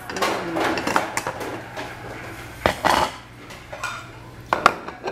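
Tableware clattering: bowls being moved and set down on a table and cutlery clinking, with a couple of sharp clinks about two and a half seconds in and again near the end.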